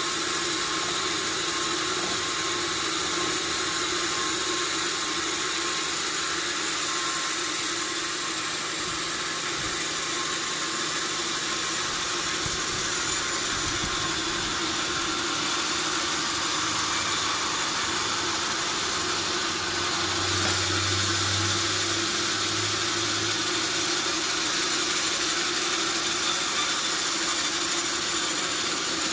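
Sawmill machinery running steadily, with a continuous mechanical noise. A low hum swells about two-thirds of the way through.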